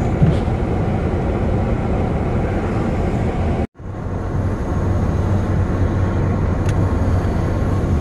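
Steady rumble and hiss inside a Honda Odyssey minivan's cabin with a low hum underneath, the sound of the van running. It cuts out for an instant a little before halfway, then carries on as before.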